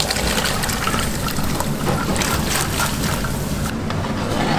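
Soaked black beans and their water tipped from a metal bowl into a pan of water, splashing and trickling. About three and a half seconds in the splashing gives way to the beans simmering in the pan, over a steady low hum.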